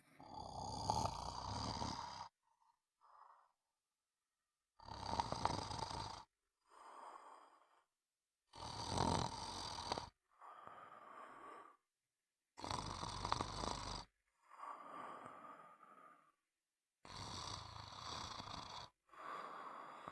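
Snoring in a slow, steady rhythm: five loud snores about four seconds apart, each followed by a softer, shorter sound.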